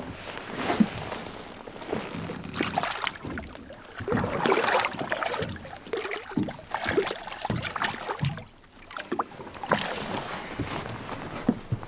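Water splashing in irregular bursts as a hooked pollack thrashes at the surface against a boat's hull and is grabbed by hand and lifted out of the water near the end.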